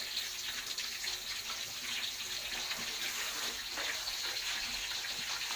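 Fish deep-frying in hot oil in a wok: a steady sizzle with light crackling.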